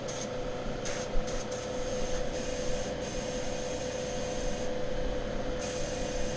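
Airbrush hissing as it sprays primer, over a steady machine hum. The spray hiss cuts out for about a second near the end, then resumes.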